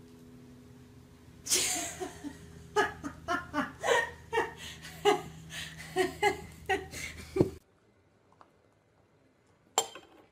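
A person laughing hard in repeated bursts for about six seconds, over a steady low hum. The hum and laughter stop abruptly, and a single short knock comes near the end.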